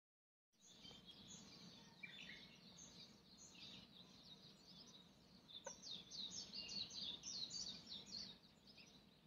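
Faint birds chirping: scattered short, high calls that grow busier about halfway through, over a faint low background hum.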